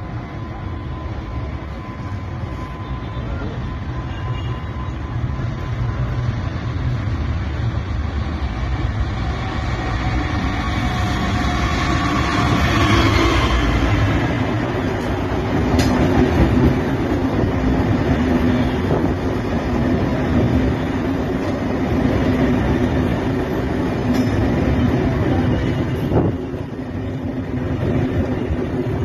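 Diesel passenger locomotive approaching and passing close by at speed, its engine note growing louder and dropping in pitch as it goes by. It is followed by a steady rumble and clatter of coaches running past, with occasional sharp clicks from the wheels.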